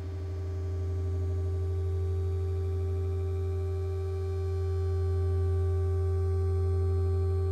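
Electronic music: a sustained synthesizer drone of steady held tones over a deep low note, swelling gently in loudness.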